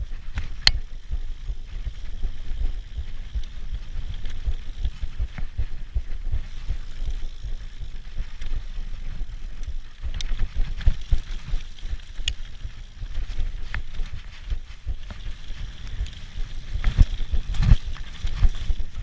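Mountain bike ridden fast down a dirt forest trail, heard from a camera mounted on the bike or rider: a steady low rumble with sharp clicks and rattles from the bike over bumps, and a cluster of heavier knocks near the end.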